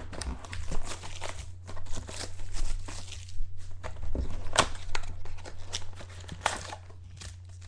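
Crinkling and tearing of packaging with scattered sharp clicks and knocks as a box of football cards is opened and handled, over a steady low electrical hum.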